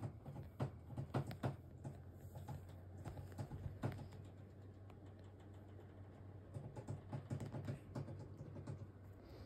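Faint handling noises: scattered light clicks and soft rustles as a hand strokes a hamster on a fleece towel, in small clusters, over a low steady hum.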